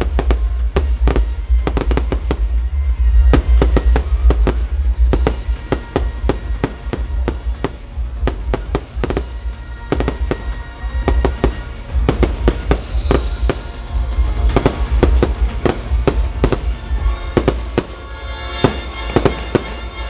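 A fireworks finale going off in a dense, irregular volley of bangs and crackles, many sharp reports a second over a deep rumble, with loud music playing under it.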